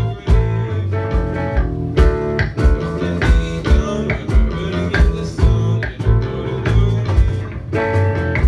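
Live rock band playing: electric guitars and bass guitar over a steady drum beat, amplified through the PA in a small room.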